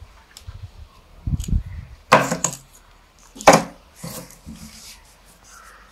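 The glue joint of a two-piece carved wooden lure blank being pried open: some low knocks as it is worked, then two sharp cracks about a second and a half apart as the glued halves split.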